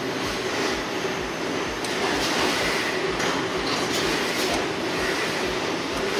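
Brother Speedio RX-2 series CNC machining centre running, its spindle machining aluminium workpieces: a steady loud hiss with a faint whine and a regular low pulse.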